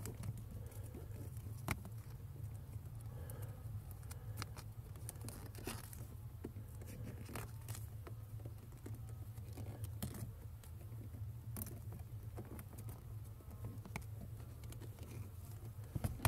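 Small handling noises of wiring being worked under a car dashboard: scattered light clicks, taps and rustles of wires and a metal rod, over a steady low hum.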